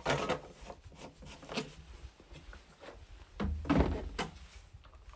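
Plastic knocks and clunks of a red jerry can and a Husqvarna chainsaw's fuel cap being handled while the saw is refuelled, with a louder cluster of knocks about three and a half seconds in.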